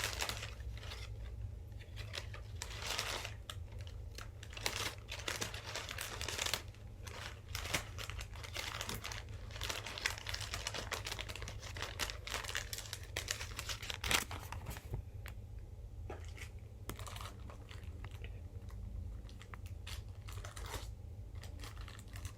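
Crinkling and rustling of packing filler and small packaging being handled, irregular small crackles and clicks while a pin is untangled from the filler.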